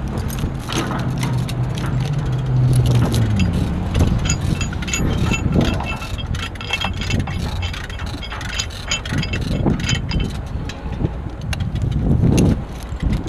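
Steel rigging chain clinking and rattling against the steel pile and shackle, in many short irregular clinks, over an engine running low that fades out a few seconds in.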